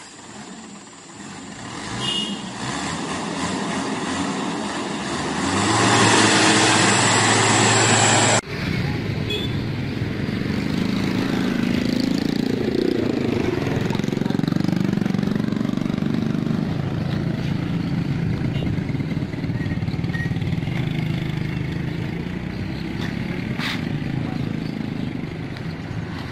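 A noise that builds over several seconds and cuts off abruptly about eight seconds in, then the steady low rumble of vehicle engines and road traffic.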